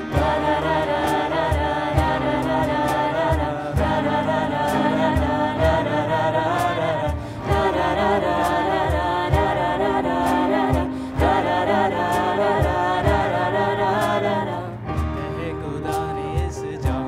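Live group singing: several voices sing together in harmony over acoustic guitar, keyboard and a steady low beat from a cajón. The voices stop near the end, leaving the instruments playing.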